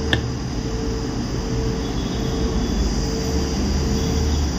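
Steady low background rumble with a faint on-off hum, and one light click just after the start.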